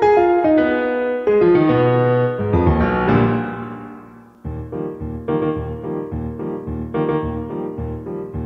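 Intro theme music on a piano-sounding keyboard: quick falling runs of notes that fade out about four seconds in, then a steady pulsing pattern of chords over a bass beat.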